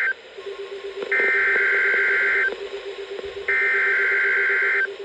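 NOAA Weather Radio SAME header: bursts of digital data tones, each about a second and a half long with a gap of about a second between them. The end of one burst falls right at the start, followed by two more. These are the coded bursts that begin a Required Weekly Test, and a faint steady low tone runs underneath.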